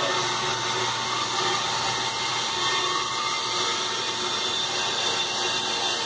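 Circulation pump of a manual beer keg washer running steadily, pumping sanitizer through the keg.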